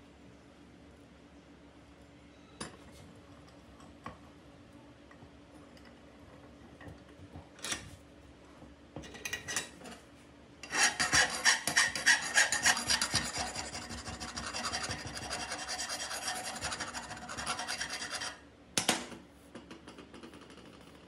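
Rapid back-and-forth scraping strokes of a hand tool on the steel cylinder of a hydraulic jack held in a bench vise. The scraping starts about halfway through, runs for about seven seconds and is loudest at first. A few light knocks come before it, and one clank comes shortly after it stops.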